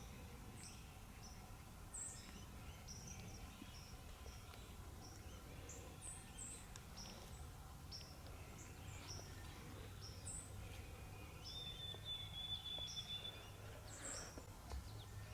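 Small songbirds chirping, with many short high notes scattered throughout and a thin, steady high trill lasting about two seconds a little after the middle, over a faint low rumble.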